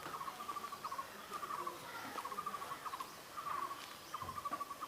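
Short trills of quick chirps at one pitch, repeating about once a second.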